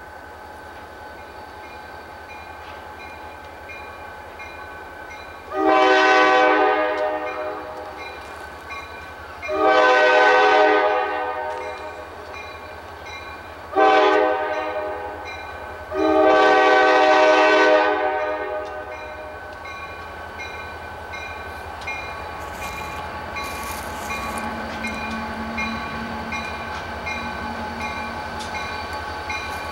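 Nathan K5LA five-chime air horn on an approaching diesel locomotive sounding the grade-crossing signal: long, long, short, long. After the horn the locomotive's engine rumble grows louder as it nears.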